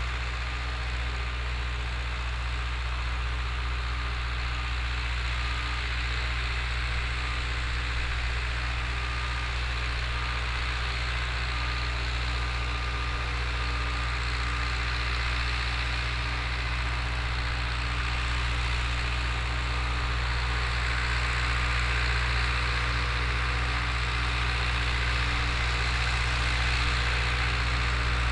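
Long 900 tractor's diesel engine running steadily, pulling a disk harrow, getting a little louder over the last several seconds.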